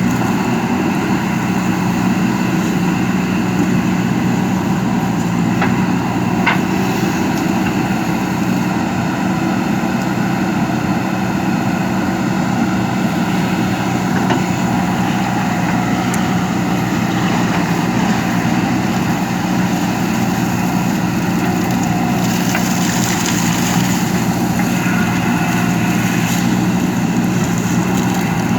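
JCB backhoe loader's diesel engine running steadily while it works, with a couple of light knocks about six seconds in.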